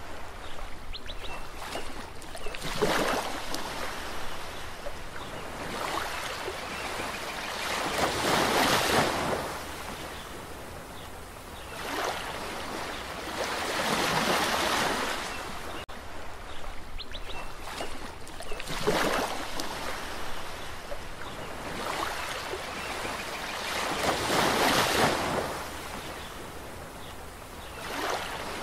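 Waves breaking and washing on a shore, the surf swelling and falling away every few seconds.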